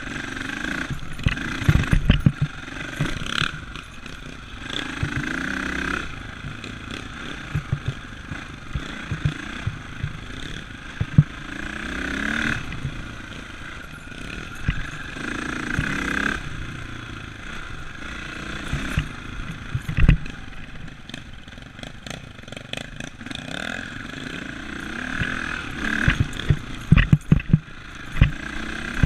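Dirt bike engine revving up and down while riding a rough trail, its pitch rising and falling every few seconds, with frequent thumps and rattles as the bike jolts over bumps under a handlebar-mounted camera.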